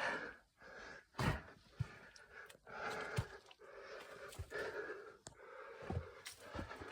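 A person breathing heavily close to the microphone inside a small enclosed stone space, with a few scattered thumps.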